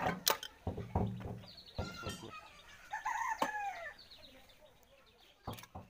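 A rooster crowing about three seconds in, with hens clucking, over several sharp metallic clicks. The diesel engine is not running.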